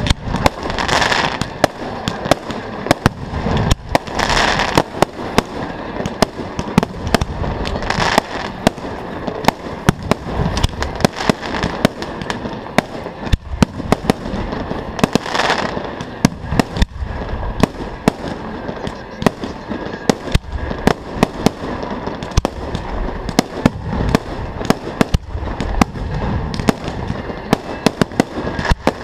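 Fireworks display: shells bursting in a dense run of sharp bangs, with swells of crackling at several points.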